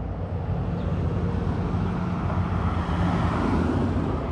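Supercharged LS V8 of a 1940 Ford rat rod pickup idling steadily, a low, even drone.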